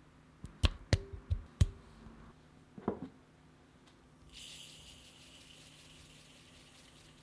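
A quick run of sharp knocks as blocks of butter drop into a glass mixing bowl, and one more knock about three seconds in. From about four seconds in, granulated sugar pours onto the butter with a steady hiss.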